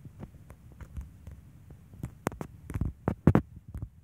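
A series of irregular thumps and knocks, sparse at first, then louder and closer together in the second half, the loudest a little over three seconds in.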